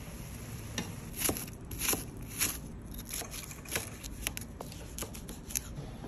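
Knife slicing through a red bell pepper onto a cutting board: a string of sharp, irregular cuts, some coming in quick runs.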